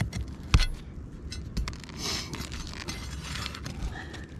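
A metal tool scraping under asphalt roof shingles and working roofing nails loose. There are scattered clicks, a sharp knock about half a second in, and a longer stretch of scraping about two seconds in.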